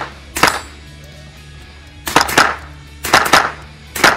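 Shots from a semi-automatic .22 LR carbine fired on an IPSC Mini Rifle stage. There is one shot at the start and another half a second later, then two quick double taps about two and three seconds in, and one more shot near the end.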